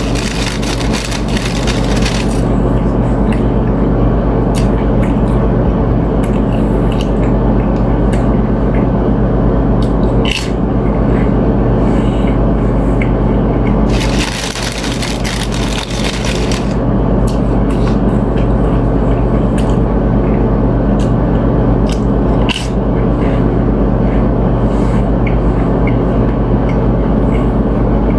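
Close-miked eating: crunching chips and chewing, with many short crackling clicks and a few longer crunching stretches, over a steady low hum.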